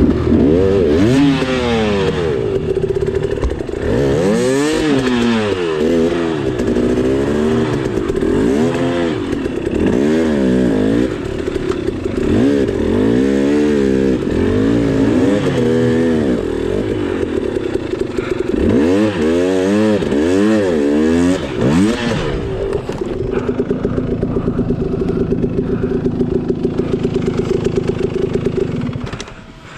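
300cc two-stroke enduro dirt bike engine revving up and down over and over, the throttle worked every second or two as it picks through technical singletrack. From about 23 seconds in it holds a steadier note, then drops off briefly near the end.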